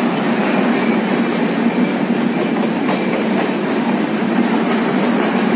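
Rajdhani Express passenger coaches rolling past along the platform: a steady, loud rumble of wheels on rail, with a few light clicks from the rail joints.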